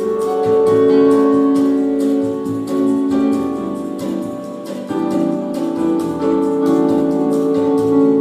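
Instrumental music: held keyboard chords with guitar notes over them.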